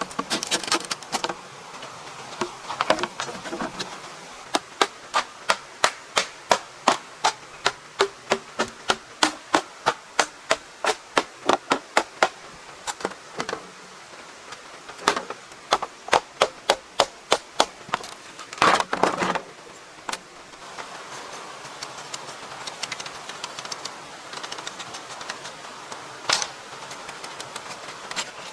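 A steady run of hand-tool blows on wood, about two a second for some eight seconds, then a few scattered single strikes. An insect hum carries on under them.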